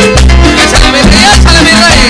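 Tropical dance music played live by a keyboard-led band: a steady bass and percussion beat, with a wavering high melody line coming in partway through.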